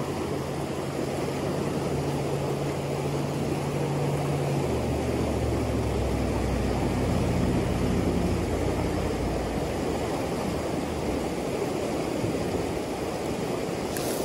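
Shallow mountain stream rushing over rocks, a steady wash of water. Under it runs a low motor drone that drops in pitch about five seconds in and fades out around ten seconds.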